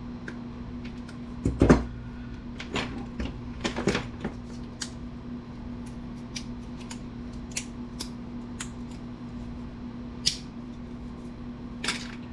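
Wire cutters snipping cords off small computer circuit boards, heard as scattered short clicks and snaps, with the knocks of parts being handled and a louder knock about two seconds in. A steady low hum runs underneath.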